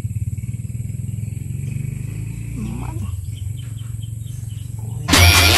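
A small engine running steadily nearby, a low, evenly pulsing rumble that slowly fades. There is a brief animal call about two and a half seconds in, and loud electronic intro music starts abruptly near the end.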